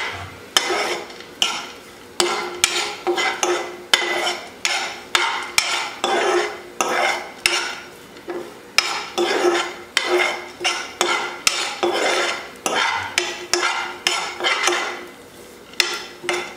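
A steel spoon scraping and tapping across a nonstick frying pan, stirring chopped dry fruits and nuts as they dry-roast. The strokes repeat about once or twice a second, with the nuts rattling over the pan's surface.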